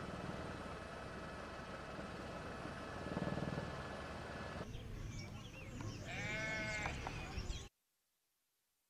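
A steady drone from an aircraft engine, with faint steady whine tones. After a cut, a farm animal bleats once with a wavering call about six seconds in. The audio then cuts out abruptly.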